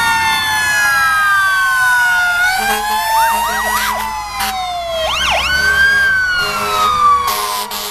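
Several fire engine sirens wailing at once, their pitches rising and falling across each other, with short bursts of quick whooping chirps partway through.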